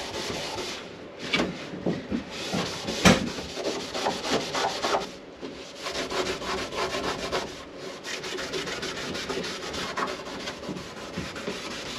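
Hand-scuffing a molded vanity countertop with an abrasive pad: quick back-and-forth rubbing strokes, roughing the surface so the glue will bond.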